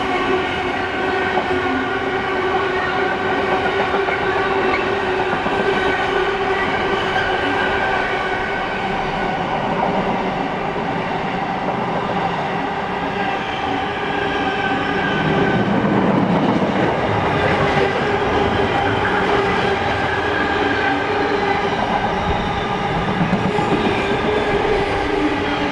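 Class 50 diesel locomotive 50007 passing under power, its English Electric 16-cylinder engine working hard with a steady note: the 'thrash' Class 50s are known for.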